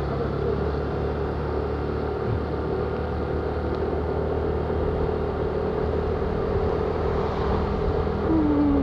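A motor vehicle running, a steady low drone of engine and road noise with a steady hum. A short falling tone sounds near the end.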